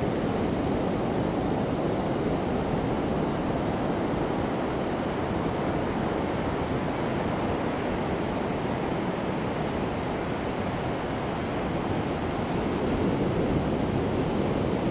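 Ocean surf breaking offshore and washing up a sandy beach: a steady rush of waves that eases slightly midway and swells again near the end.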